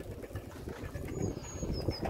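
Wind rumbling on the microphone outdoors. A small bird gives a short run of high chirps in the second half.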